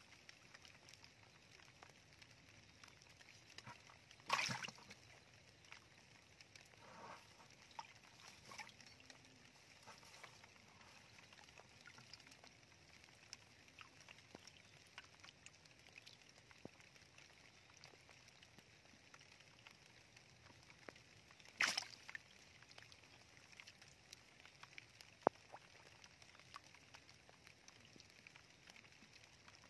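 Faint water in a shallow muddy channel, with two short splashes about four seconds in and again about twenty-two seconds in, a fish stirring in the shallow water, and a few softer splashes between them.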